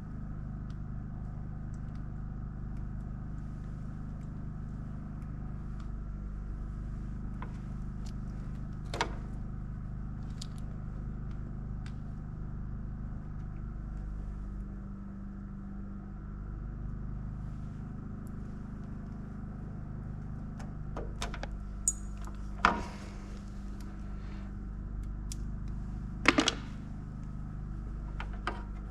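A steady low machine hum made of several steady tones, with a few sharp clicks and knocks scattered through it, the loudest two close together about two-thirds of the way in and another near the end.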